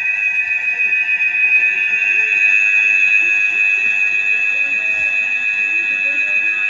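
A steady, loud high-pitched electronic tone, like an alarm or whistle, held unbroken throughout. Faint wavering voice-like sounds run underneath it.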